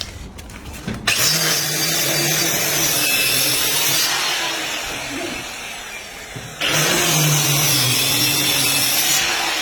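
A loud motor-driven machine running with a hissing rush over a low hum. It starts abruptly about a second in, eases off, then starts abruptly again past the middle for a couple of seconds.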